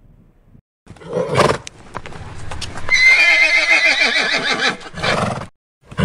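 Horse neighing: a short sound about a second and a half in, then a long, wavering whinny that falls slightly in pitch.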